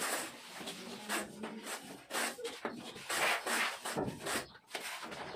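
Steel trowel scraping and spreading sand-cement plaster over a concrete beam in repeated uneven strokes, a few a second.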